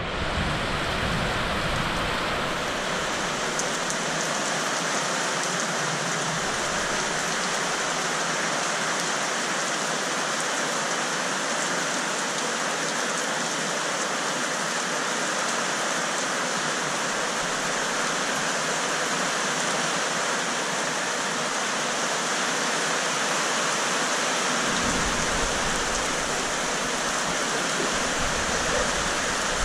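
Heavy rain falling steadily onto corrugated metal roofs.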